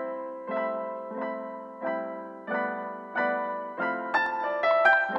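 Background music on a piano-like keyboard: sustained chords struck about every two-thirds of a second, with quicker, higher melody notes joining near the end.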